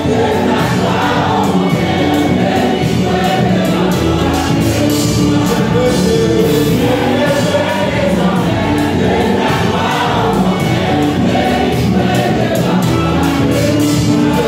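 Choir singing a gospel hymn together with music, with a steady beat.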